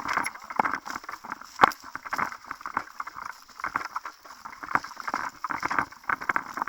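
Irregular crunching footsteps and gear rustling of a player on the move, with one sharper click about a second and a half in.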